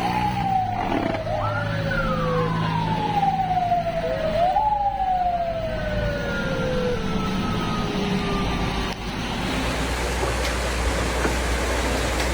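A siren wailing: each cycle rises quickly and falls slowly, repeating every two to three seconds, over a steady low hum. It stops about nine seconds in, and a steady rushing noise is left.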